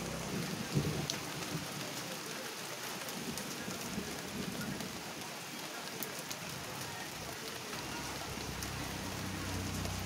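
Steady rain falling on garden plant leaves and the ground, an even hiss with scattered drops. A low rumble fades away in the first second or so.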